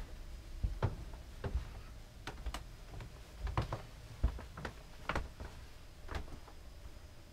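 Scattered soft knocks and clicks at an uneven pace: footsteps and the handling of a hand-held camera as it moves through a yacht's wood-panelled cabin.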